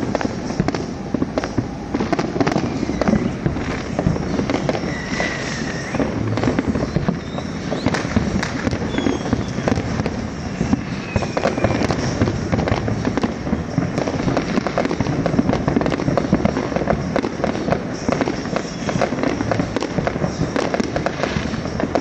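Fireworks and firecrackers popping and banging nonstop from many directions in a dense, unbroken crackle, with a few faint whistles.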